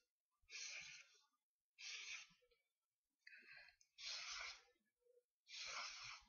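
Black felt-tip marker drawing on paper: five faint, scratchy strokes, each about half a second, coming about every second and a quarter with short pauses between.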